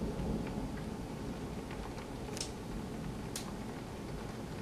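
Thunderstorm at night: steady rain noise with a low rumble that fades in the first second. Two sharp clicks land about a second apart past the middle.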